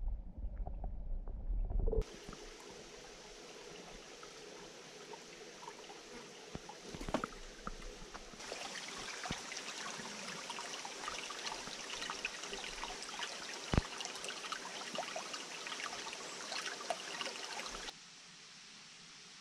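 For about two seconds, a muffled low rumble of stream water heard with the camera under the surface. Then shallow stream water trickles and splashes over stones, a steady hiss of small splashes that grows louder about eight seconds in, with one sharp click a few seconds later. Near the end it cuts to a faint, steady outdoor hiss.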